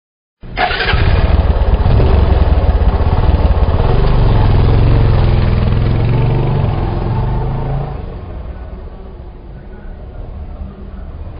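Motorcycle engine starting abruptly and running loudly with the engine note rising and falling, then dropping to a quieter, steadier idle about eight seconds in.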